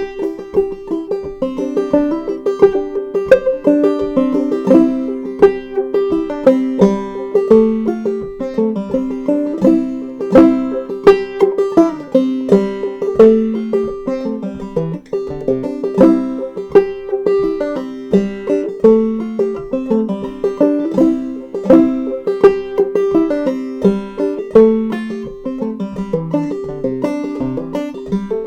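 Solo clawhammer banjo playing an old-time fiddle tune in C, an even, driving rhythm of plucked notes and brushed strums with a high drone note ringing throughout.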